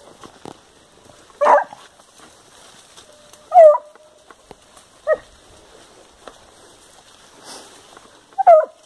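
Hunting dog barking four times, short single barks one to three seconds apart, while working the scent of a paca.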